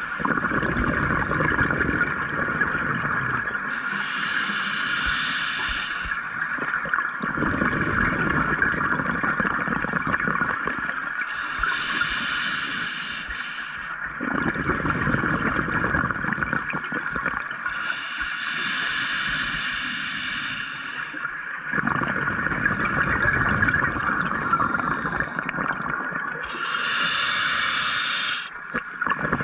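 Scuba diver breathing underwater through an open-circuit regulator: a hissing inhale roughly every seven seconds, each followed by a long rush of exhaust bubbles, four breaths in all. A steady hiss runs underneath.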